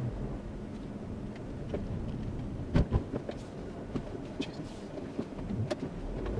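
A car driving slowly, heard from inside its cabin as a steady low rumble, with scattered clicks and a couple of louder knocks about three seconds in.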